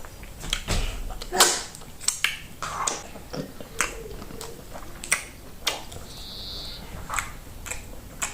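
Close-up eating sounds of plantain fufu with slimy okra soup: irregular wet mouth smacks and sticky clicks, about a dozen, coming unevenly.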